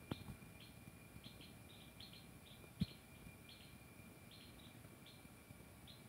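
Faint steady high-pitched tone of a distant giant cicada (Quesada gigas) singing, with short high chirps at roughly two a second over it and a single soft knock about halfway through.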